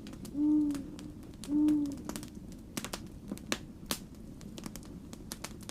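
An owl hooting twice, two low hoots about a second apart, over a log fire crackling with small scattered pops.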